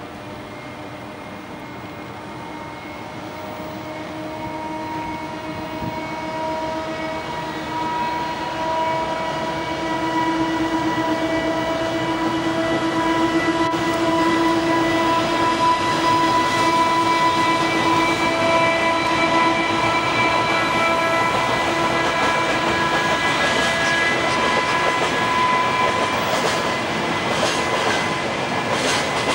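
JR Freight EF510 electric locomotive hauling a container freight train past. The steady whine of its traction motors, several tones at once, grows louder over the first ten seconds as it draws near and then holds. Near the end the wheels of the container wagons click over rail joints.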